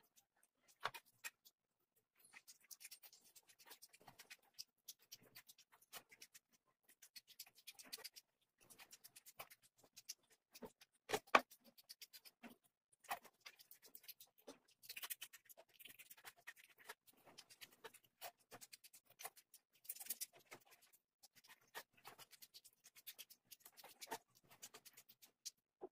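Close-miked eating: chewing and mouth sounds and fingers mixing rice with mutton curry, a steady run of small clicks and crackles with one louder click about eleven seconds in.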